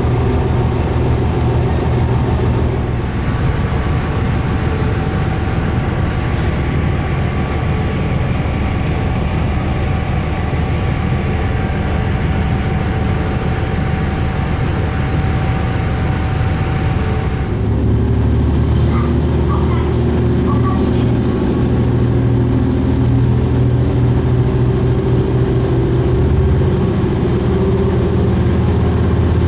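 Diesel railcar running, its engine and running gear a steady drone. About 18 s in, the sound changes: a higher whine drops away and a deeper, stronger engine hum takes over.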